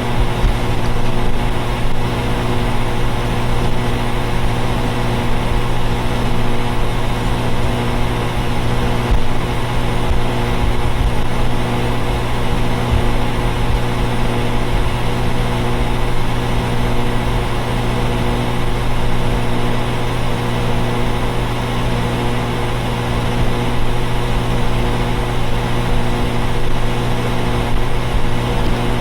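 Neighbours' central air conditioners running: a steady droning hum, several unchanging tones over a low rumble.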